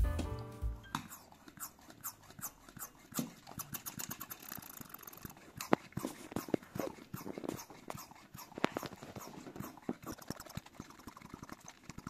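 Handheld brake-bleeding vacuum pump being worked by hand to pull a vacuum on a homemade epoxy vacuum chamber: a run of irregular short clicks and knocks from the pump's handle and valves.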